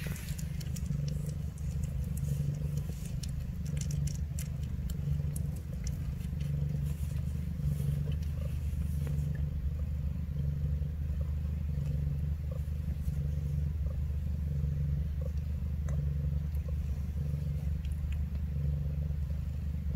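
Cat purring steadily during nursing, a low continuous rumble that swells and eases in a slow rhythm with each breath. Small clicks, mostly in the first half, come from the kittens suckling.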